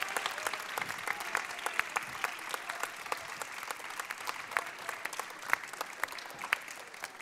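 Audience applauding in a theatre, a dense patter of clapping that slowly fades toward the end.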